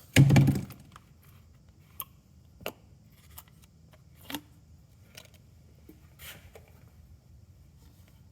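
Plastic jug of engine oil being handled and opened to refill a tractor engine: one heavy knock just after the start, then scattered light clicks and taps.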